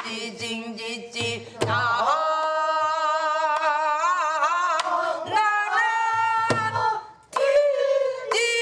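Korean folk singing: a voice holding long, wavering notes, with a few low strokes on a buk barrel drum beaten with sticks. The singing breaks off briefly about seven seconds in and then starts again.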